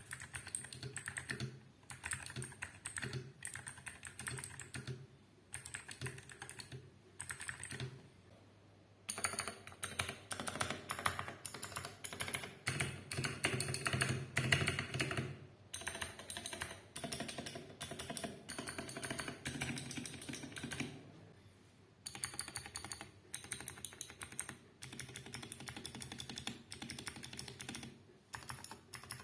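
Fast typing on a Vortexseries VX8 mechanical keyboard with clicky blue switches: a rapid stream of key clicks, pausing briefly about eight and again about twenty-one seconds in, busiest and loudest between about nine and sixteen seconds in.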